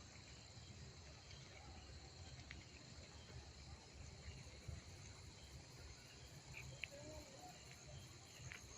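Faint, steady chirring of insects, with a few short high chirps in the second half.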